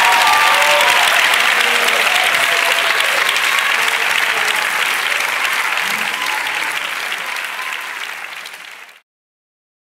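Audience applauding, with a few voices rising over the clapping at first; the applause fades out gradually and cuts to silence about nine seconds in.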